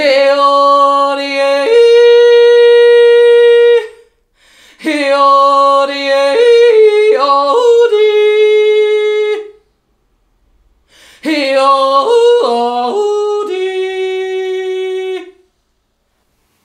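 A woman yodeling in three phrases with short pauses between. Each phrase flips back and forth between a low and a high note and ends on a long held note.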